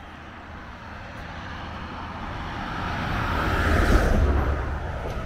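A truck passing by on the road, its engine rumble and tyre noise growing louder, peaking about four seconds in, then starting to fade.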